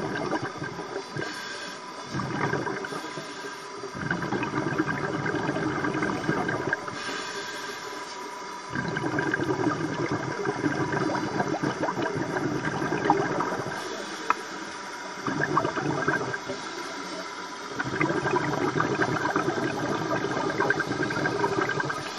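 Scuba diver breathing through a regulator underwater: a brief hiss on each inhale, then a longer rush of exhaled bubbles, repeating every few seconds. A fine crackle of clicks runs underneath.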